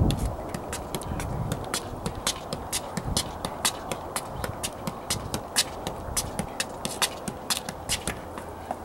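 A soccer ball being juggled on the feet: short, sharp taps of foot on ball, about three a second, keeping an even rhythm.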